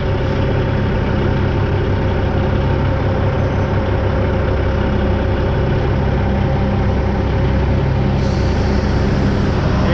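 Diesel engine of a Western Star dump truck idling steadily. A short hiss of released air, about a second and a half long, comes about eight seconds in.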